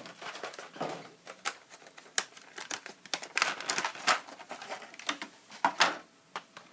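Small hard plastic clicks and rustling as a plastic action figure and its bow accessory are handled and fitted together, with irregular sharp clicks and a few short rustles.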